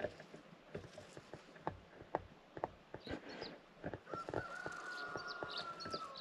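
Chickens calling, with one drawn-out call held for about two seconds near the end, over scattered light taps and clicks.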